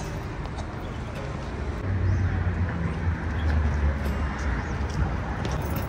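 Low rumble of street traffic, growing louder about two seconds in.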